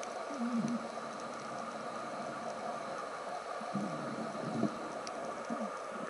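Underwater ambience picked up by a camera in open sea: a steady hiss with a few short low sounds that bend in pitch, about half a second in and again around four seconds.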